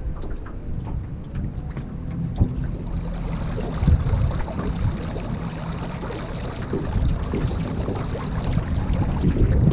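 Water rushing and splashing along the hull of a 12-foot aluminum boat under way behind a Minn Kota Endura electric trolling motor, with wind buffeting the microphone.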